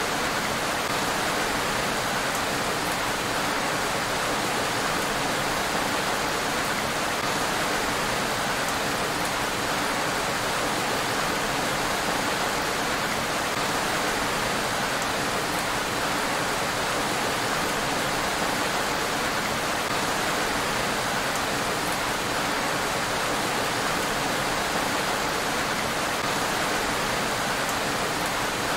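Steady rain falling on a road: an even, unbroken hiss with no thunder.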